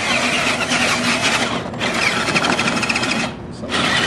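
Excavator robot's electric motors and gear drives running with a fast rattling whir, cutting out briefly twice.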